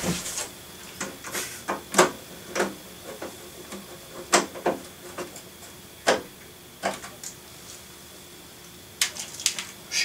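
Sharp, scattered metallic clicks and taps as small anodized thumb screws are handled and fitted into the back of a Dell Inspiron 3650 desktop case, with a quick run of clicks near the end. A faint steady tone sits underneath.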